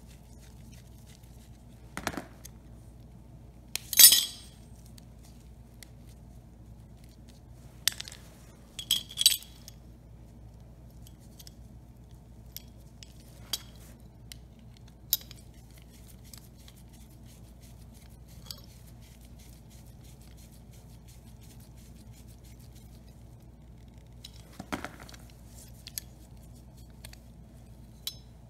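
Scattered clinks and taps of hand-tool work on small parts: a screwdriver against a plastic fuel shutoff valve and its metal bracket, with parts set down on a concrete floor. They come several seconds apart, the loudest a sharp clink about four seconds in, over a faint steady low hum.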